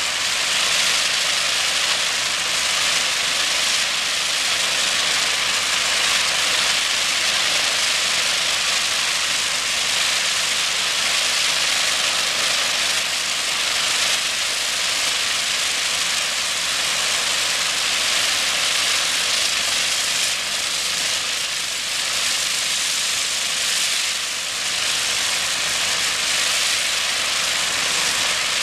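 High-pressure water jet from a hydro-blasting lance hissing steadily as it strips epoxy paint striping off asphalt, with a faint low engine hum underneath.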